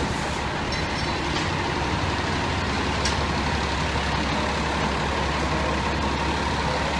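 A fire engine's diesel engine running steadily, a constant low rumble with a faint steady whine over it.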